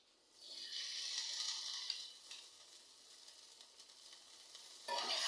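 Soy sauce sizzling as it hits hot oil and sugar in a pan: a hiss that is strongest for a second or two, then fades, rising again near the end.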